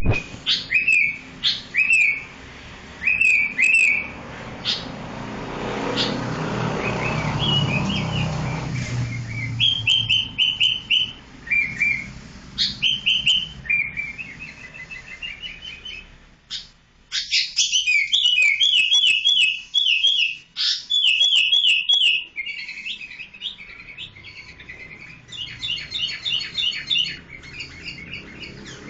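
Sooty-headed bulbul chirping in phrase after phrase of quick, short high notes, with brief pauses between runs.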